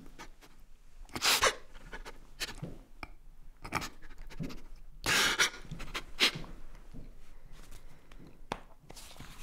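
A man crying: about half a dozen sharp, gasping sobbing breaths at uneven intervals, without words.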